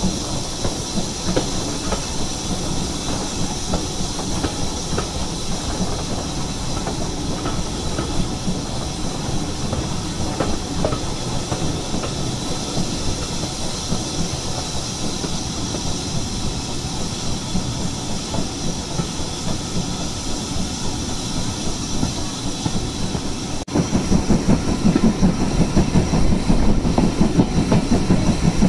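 Steam-hauled train running, heard from a carriage window just behind the locomotive: wheels clattering over the rail joints with a steady steam hiss. About 24 seconds in the sound cuts off and comes back louder and deeper.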